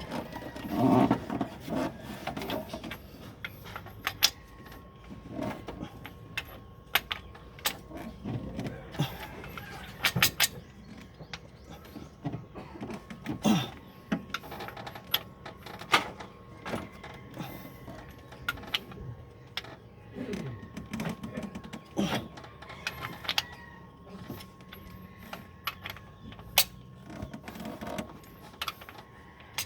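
Hand tools working on engine metal: scattered sharp clicks and knocks at irregular intervals, with some duller thuds, over a faint steady whine.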